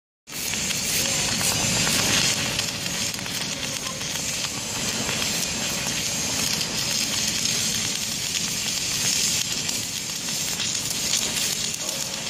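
Electric arc welding along a steel seam: the arc gives a steady hiss.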